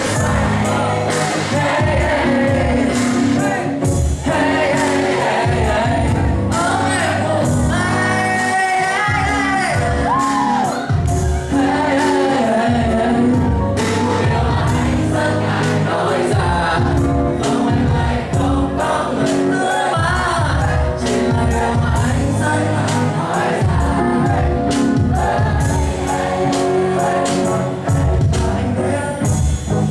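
A live pop song played loud by a band, with singing over it.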